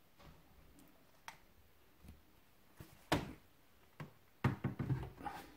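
Handling noise from a Philips HTL1520B soundbar's casing as it is picked up and tipped round on the stand: a few light clicks, a sharper knock about three seconds in, and a cluster of knocks and rubbing near the end.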